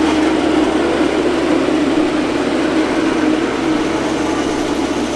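Mini skid steer's engine running steadily at a constant speed.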